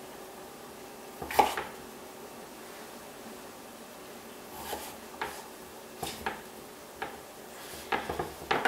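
Chef's knife cutting through peeled raw potatoes and knocking on a wooden cutting board: one loud chop about a second in, then a run of lighter knocks and a quick flurry of them near the end.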